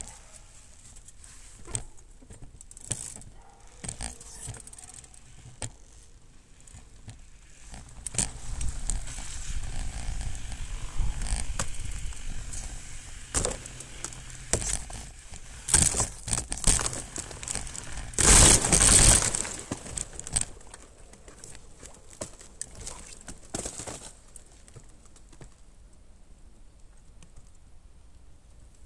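Mountain bike ridden over snow, heard from a camera mounted on the bike: tyres crunching and the bike rattling and clicking over bumps, with a loud rough stretch about two-thirds of the way in.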